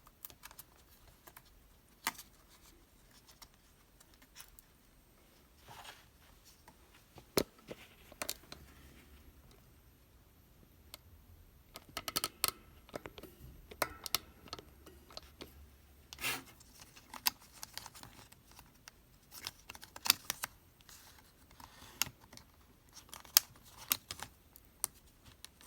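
Small clicks, taps and light scrapes of hands and parts being handled inside an opened MacBook Air as its SATA SSD is fitted back into its slot. The clicks are sparse at first and come thicker in the second half.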